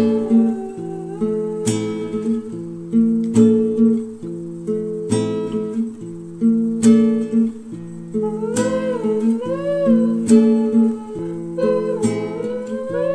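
Background music: a strummed guitar, a strong strum about every second and a half, with a melody that slides up and down in pitch above the chords.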